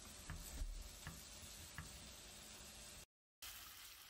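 Wooden spatula stirring shrimp and vegetables in a granite-coated frying pan: a few light knocks over a faint steady hiss. The sound drops out for a moment about three seconds in.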